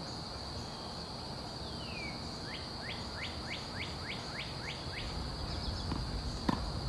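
Outdoor ambience: a steady high insect trill throughout, and a bird calling a quick run of about eight short notes in the middle. One sharp knock near the end.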